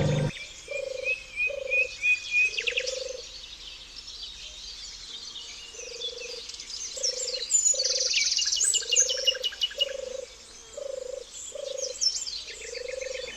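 Frogs croaking: short, repeated calls, one or two a second, with a pause of about two seconds in the middle. Small birds chirp and trill over them.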